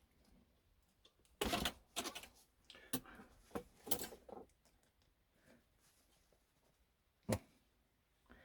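Close handling noises as a tie is worked around heat-wrapped exhaust pipe: a dense rattle of clicks about a second and a half in, a few more clicks and rustles over the next three seconds, then one sharp click near the end.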